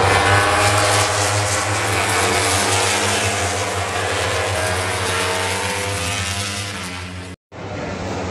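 Several MotoGP racing motorcycles' engines running at high revs as the pack passes, the pitch of their engines sliding up and down together. The sound drops out for a moment near the end.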